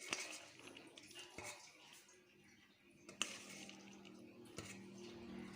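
Faint kitchen handling sounds: a metal utensil clicking against a cooking pot a few times over a light rustle.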